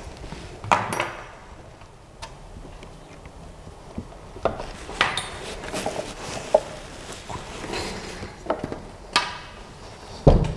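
Irregular clanks, knocks and small clinks of a 3D printer's metal gantry frame being handled and fitted together. The loudest is a heavy thump near the end, as the frame is set down on the base.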